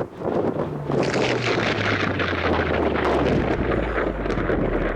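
Strong storm wind buffeting the microphone in loud, steady gusts, with a low hum underneath.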